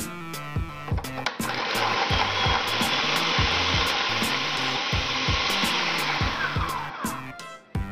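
Electric food processor running, its blade chopping bird's eye chillies, shallots, garlic and ginger into a coarse paste; the motor starts about a second and a half in and winds down near the end. Background music with a steady beat plays throughout.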